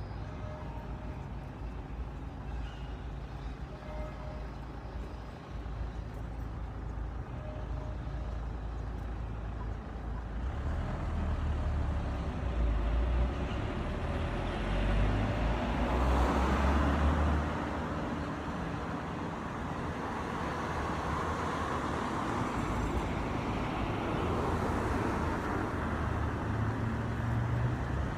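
Steady rumble of road traffic, swelling from about ten seconds in and loudest around sixteen to seventeen seconds, as a vehicle passes close by.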